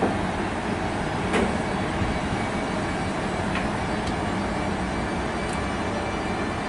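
A train running past, a steady rumble with no rise or fall, and a short metallic click about a second and a half in.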